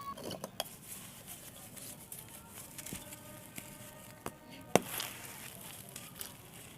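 Small dry red sand-clay blocks crumbling, with scattered crisp pops and cracks; the sharpest crack comes about two-thirds of the way through.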